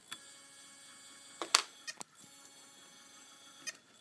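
Opened hard disk drive with a stuck platter, its spindle motor whining in steady high tones as it tries to spin up, with a sharp click about a second and a half in and smaller clicks shortly after and near the end.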